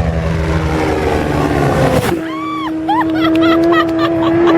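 Racing motorcycle engine passing at speed, its pitch falling over the first two seconds. After that a steady high engine note holds, with short rising-and-falling tones over it.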